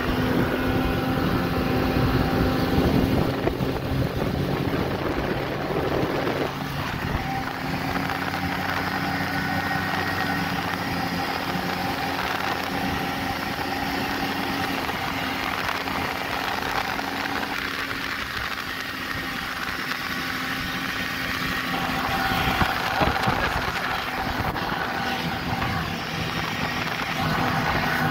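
Snowmobile engine running steadily under way, heard from the rider's seat, with the hum of the engine's tone holding level throughout over a hiss of track and snow noise.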